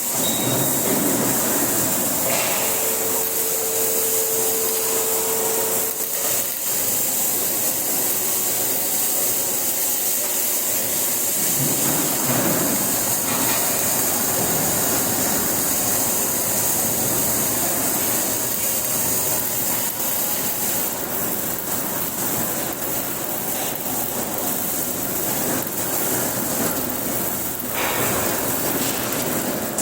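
MIG welding arc crackling steadily without a break.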